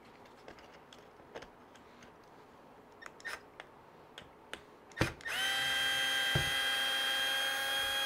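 Cordless drill-driver running at a steady, even speed, backing a screw out of an RC truck's plastic chassis. It starts about five seconds in, after a few light clicks of the tool being handled and set on the screw.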